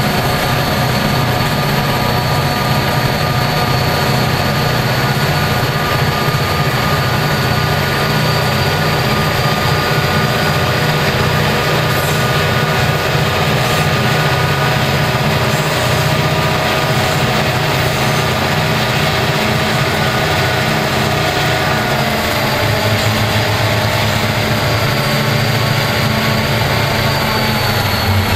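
EMD SD40-2 diesel-electric locomotive running under power, heard from a vehicle pacing alongside: the steady drone of its 16-cylinder two-stroke diesel engine. Its pitch eases down slightly about three quarters of the way through.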